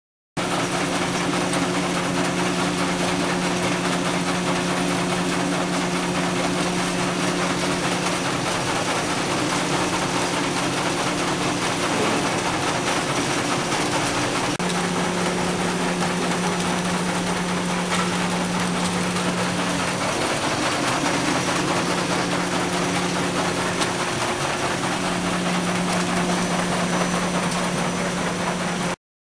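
Red pepper cleaning and separating machine running: a steady electric-motor hum over a broad, even rushing noise, the hum shifting slightly a few times. The sound cuts off abruptly near the end.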